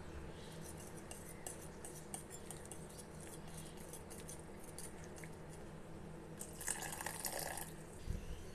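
Wire whisk clicking and scraping against a ceramic mixing bowl while stirring a wet batter, in light scattered taps. The taps turn into a louder, busier stretch about two-thirds of the way in, and a few low thuds come near the end.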